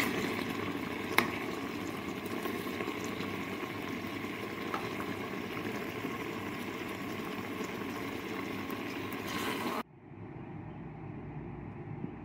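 Petha pieces bubbling in thick sugar syrup in a metal pan, a steady bubbling hiss, with a single clink of the stirring spoon against the pan about a second in. It cuts off abruptly about ten seconds in, leaving a fainter steady hiss.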